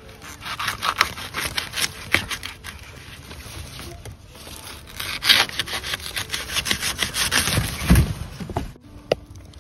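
Black taro stalks being cut with rapid sawing strokes, the stems and leaves rustling and scraping. It comes in two bouts with a lull in the middle.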